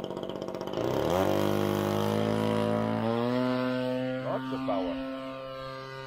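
Seagull Seafire's 26cc two-stroke gasoline engine ticking over low, then opened up to full throttle about a second in for the takeoff run. It holds a steady high-power note, then fades gradually as the model climbs away. The model is overpowered for its airframe.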